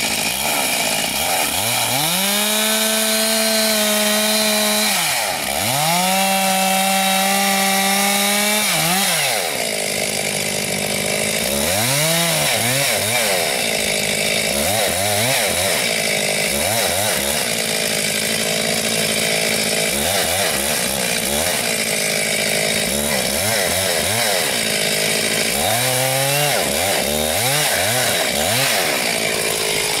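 Two-stroke chainsaw cutting into a tree trunk: the engine revs up and holds at high speed for about three seconds, twice, then rises and falls in a series of short throttle bursts.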